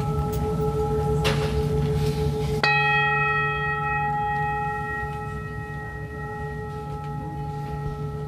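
Large copper singing bowl ringing with steady, wavering tones. About two and a half seconds in it is struck once with a felt mallet, and its layered ringing tones then sustain and slowly fade.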